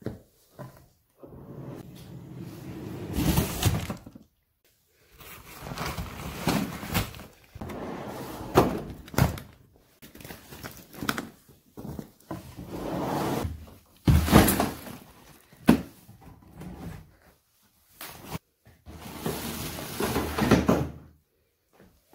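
Rustling and knocking of things being handled right beside the microphone, in long stretches of scraping noise broken by several sharp thuds.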